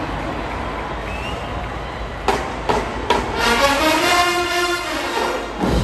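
Marching band: stadium crowd noise, then three sharp percussion hits a little over two seconds in, followed by the brass section holding a loud chord for about two seconds that swells and dies away, and another hit near the end.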